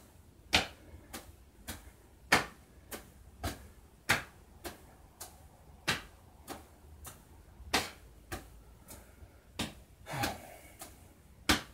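Both palms slapping the back of the shoulders over the shoulder blades, at the same time, in a steady rhythm of about three slaps every two seconds, every third one louder. It is tai chi self-massage percussion.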